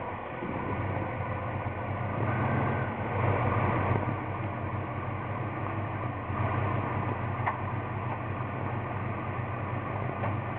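A 370 hp 355 small-block V8 in a 1992 GMC Sonoma idling steadily, swelling a little louder a few seconds in.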